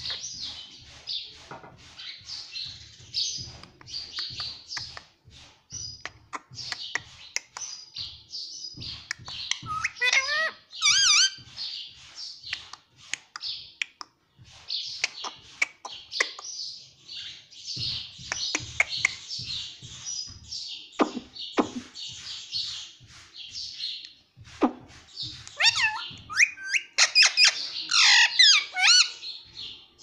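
Indian ringneck parakeet chattering and chirping almost without pause, with louder squawking whistles that sweep up and down about ten seconds in and again near the end.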